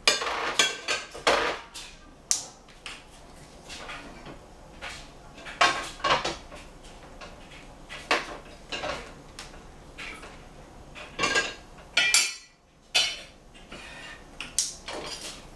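Stainless steel saucepan and other pans knocking and clinking against the gas stove's grate, irregular clatters throughout, the sharpest about twelve seconds in.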